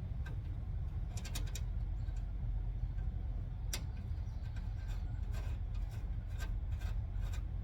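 Scattered light clicks and taps of hand tools and steel parts, a quick cluster of them a little over a second in and more spread through the rest, as truck front-end steering parts are fitted. Under them runs a steady low rumble.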